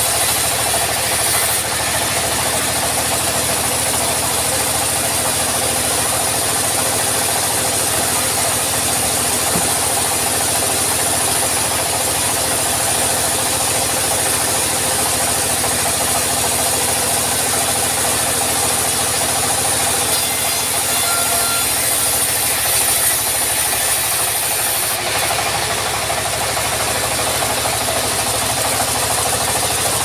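Engine-driven vertical band sawmill running steadily under load as its blade cuts a teak log into slabs: a constant engine drone with the hiss of the blade in the wood.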